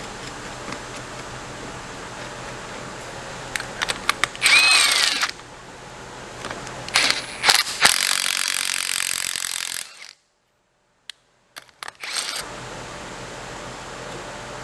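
A power tool run in short bursts during disassembly of a Polaris Ranger transmission, with a brief whine that rises and falls about four and a half seconds in and a longer run of about two seconds later on. A steady shop hum lies underneath, and the sound drops out completely for about two seconds near the end.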